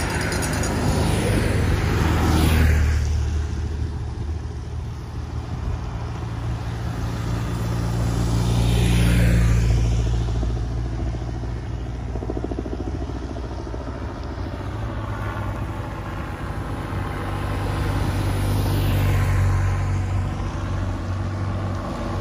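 Motorcycles passing close by three times, about two seconds in, about nine seconds in and about nineteen seconds in, each engine note swelling and dropping in pitch as it goes past, over a steady low rumble.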